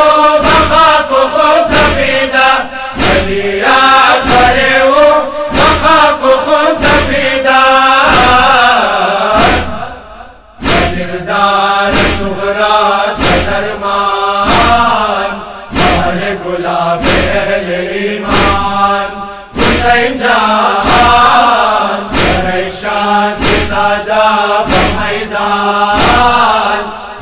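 Male group chanting a Persian-language noha (Shia lament) in unison over a steady rhythm of chest-beating (matam) strokes. The singing and the beating break off briefly about ten seconds in, then resume.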